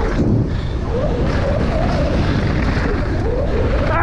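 Wind rushing over the microphone and the rumble of a downhill mountain bike running fast over a rough dirt trail, with a faint wavering tone that comes and goes.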